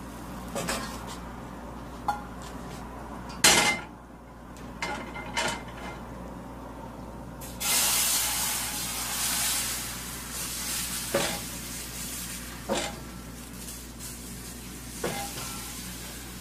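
Crepe batter poured into a hot skillet, sizzling for a few seconds starting about eight seconds in. Scattered knocks and clinks of the pan and ladle come before and after, the loudest a sharp knock about three and a half seconds in.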